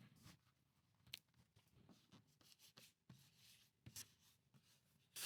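Faint paper-and-vinyl rustling with a few light clicks as a curled, old vinyl sticker is handled and pressed onto a metal toolbox door.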